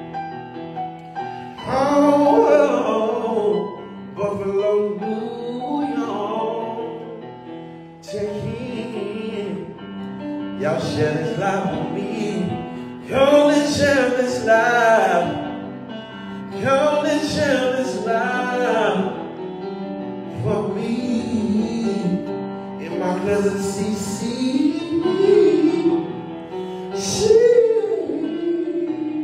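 Singing over instrumental backing music: a slow, melodic vocal line sung in phrases with short pauses between them.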